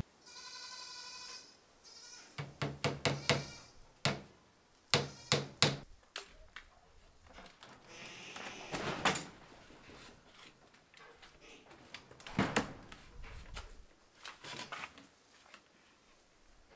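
Livestock bleat once near the start, with a fainter call later on. Between them come a series of sharp wooden knocks and clatters as the parts of a wooden hutch frame are handled, with another louder knock later.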